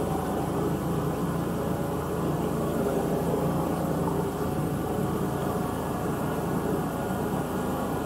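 Outboard motor of a flat-bottomed marsh boat running steadily at cruising speed, a constant drone, with water washing along the hull.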